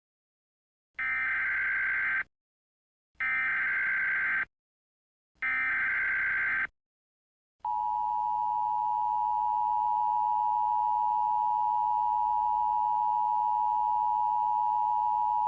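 Emergency Alert System alert opening: three short bursts of SAME digital header data, each about a second long, then, about eight seconds in, the steady two-tone EAS attention signal, held for about eight seconds. The sequence announces an Emergency Action Notification.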